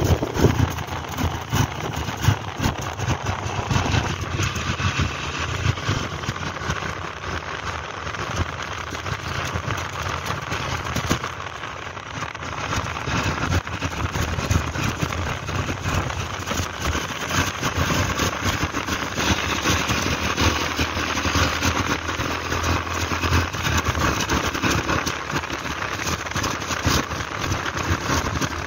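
Wind rushing over the microphone on a moving motorbike, with the bike's engine and road noise running underneath; the level rises and falls as the wind buffets.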